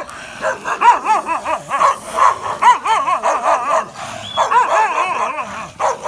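Dogs barking and whining in a rapid string of short, rising-and-falling calls, with a brief lull about four seconds in.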